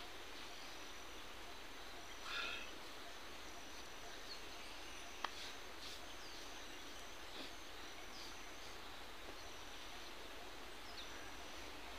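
Faint rural outdoor ambience: a steady hiss with a high thin tone that comes and goes, and a few short high chirps of small birds. A brief rustle comes about two seconds in, and a single sharp click about five seconds in.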